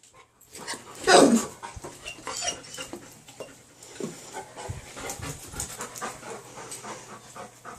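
Golden retriever panting, with one loud, short yelp falling in pitch about a second in: the anxious panting of a dog frightened by a thunderstorm.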